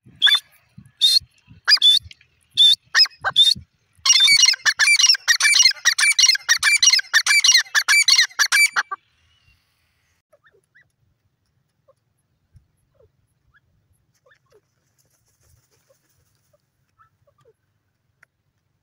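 Grey francolin calling: a few separate high-pitched calls, then a fast run of repeated calls for about five seconds that stops abruptly about nine seconds in.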